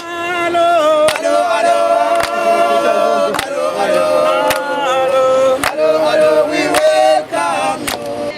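Music: several voices singing in harmony on long held notes, with a sharp percussive hit about once a second.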